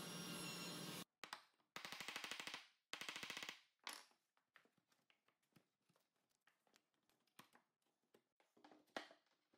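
A compact cordless router with a flush-cut bit runs steadily, then cuts off suddenly about a second in. A hand file is then drawn across the inside corner of a wooden edge in two quick chattering strokes, followed by lighter scraping and scattered small clicks.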